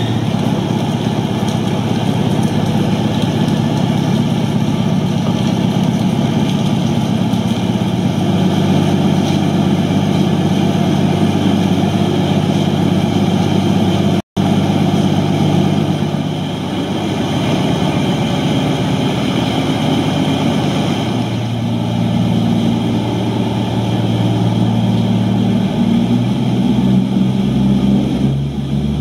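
Sound-fitted model of a Class 221 Voyager diesel-electric unit, its speaker playing the diesel engine idling at the platform. The engine note shifts a few times, and the sound cuts out for an instant about halfway.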